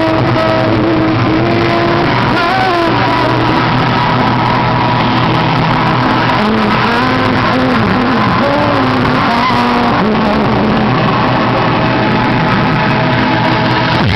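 Loud music played through a Ford F-250's car sound system, constant in level, with a wandering melody line over a steady bass.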